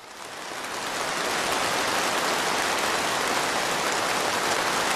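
Large audience applauding: a dense, even clapping that fades in over the first second or so and then holds steady.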